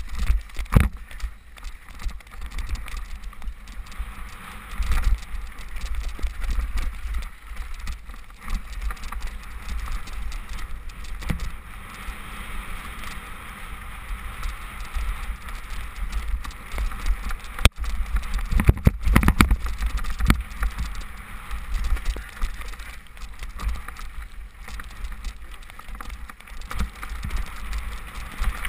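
Bike-mounted camera on a Specialized Demo 8 I downhill mountain bike descending a wet, muddy trail: a steady rumble and rattle of the bike and wind with tyre noise, broken by a quick cluster of sharp knocks from hits about two-thirds of the way through.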